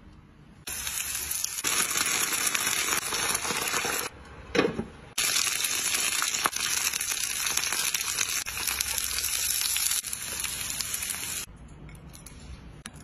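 Dumplings pan-frying in a nonstick pan, sizzling with a steady hiss. The sizzling breaks off about four seconds in, with a short, lower sound in the gap, then resumes and stops about eleven and a half seconds in.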